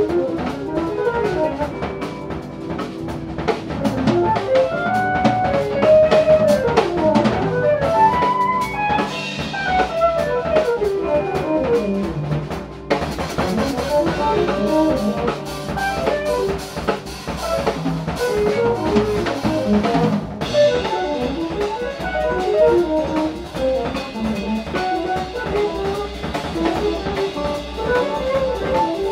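Live jazz-fusion band playing: drum kit, electric bass, electric guitar and synthesizers, with a busy lead line that glides up and down in pitch over the drums.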